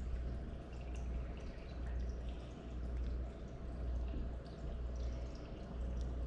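Aquarium filter running: a steady low hum with water trickling and dripping into the tank, and a few faint ticks.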